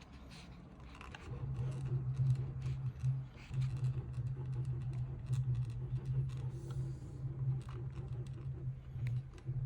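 Anycubic Kobra 3 3D printer's print head being moved, giving a low steady hum that stops briefly a few times, with scattered clicks and rattles. This is the extreme noise from the print head that the owner finds abnormal in a printer only two months old.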